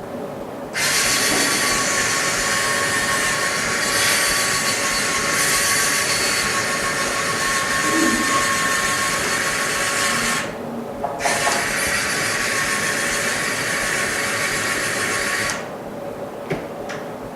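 Small handheld power tool scrubbing old adhesive off an iPhone X OLED panel, giving a steady whirring hiss with a faint steady whine. It stops briefly about ten seconds in, starts again, and stops for good a couple of seconds before the end.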